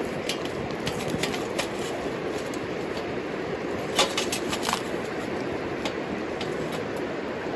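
Wood fire crackling in a homemade wood stove: scattered sharp pops over a steady rushing background, the loudest pop about four seconds in.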